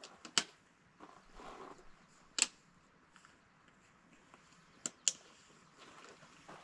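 Camping gear being packed up: a few sharp clicks at uneven intervals, two of them close together about five seconds in, with a soft rustle between the first two.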